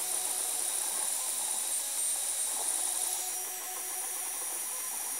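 Alfawise U20 3D printer running while printing a calibration cube: a steady mechanical whir with a high whine, changing slightly about three seconds in.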